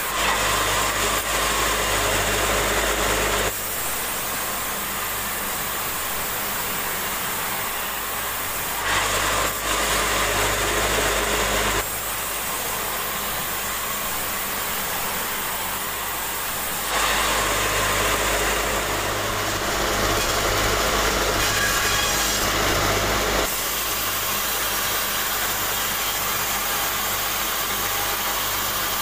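Sawmill saw running steadily with a constant hum, with three louder stretches as the blade cuts through timber: near the start, about nine seconds in, and from about seventeen to twenty-three seconds in.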